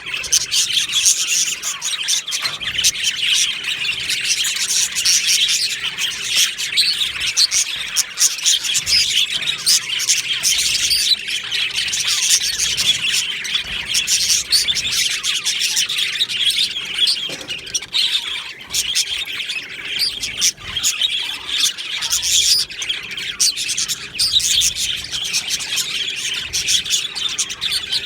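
A colony of budgerigars chirping and warbling together, a dense continuous chatter of many overlapping calls.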